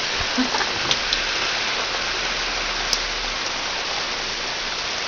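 Heavy rain falling steadily in a thunderstorm, a constant even hiss of rain on surfaces.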